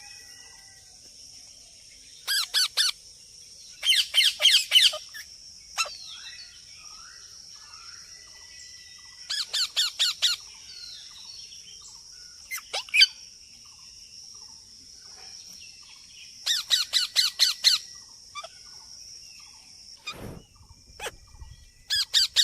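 A parrot calling in about six short bursts, each a rapid run of five to eight loud calls, with quiet gaps between, over a steady high-pitched hiss. A single dull thump about twenty seconds in.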